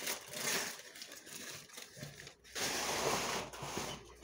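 Rustling and crinkling from hands handling bare-root desert rose seedlings, in two spells, the second starting about two and a half seconds in and lasting about a second.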